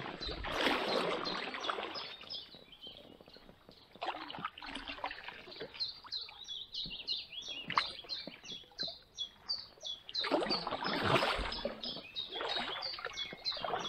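Kayak paddle strokes splash while branches and leaves brush and rustle along an inflatable kayak as it pushes through an overgrown channel, coming in several noisy bursts. Through the middle, a bird repeats a short high note about three times a second.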